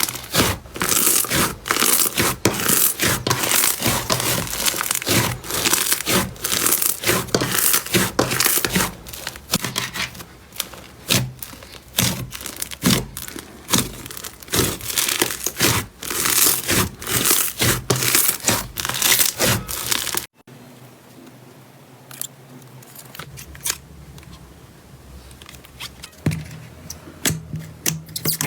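Slime being worked by hand, giving dense crackling, popping clicks. About twenty seconds in it cuts abruptly to a much quieter stretch with only occasional soft clicks.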